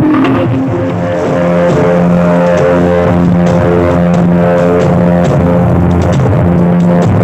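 Loud music with a heavy, droning bass line and long held notes, played through a miniature sound system at full volume.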